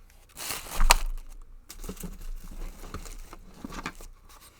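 Packing material rustling and crinkling as items are handled and pulled out of a box, with a louder burst of crinkling about a second in.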